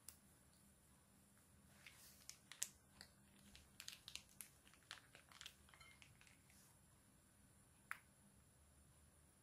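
Faint crinkling and small clicks of a soft plastic mayonnaise pouch being squeezed and folded in the hand, a cluster of them a couple of seconds in and a single click near the end.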